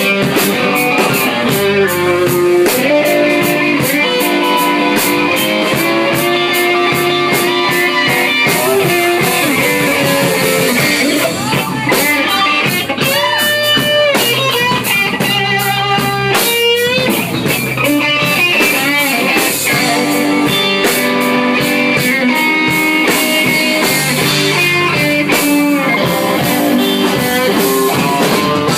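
Rock music with electric guitar and a drum kit, played steadily throughout, with a few sliding guitar notes partway through.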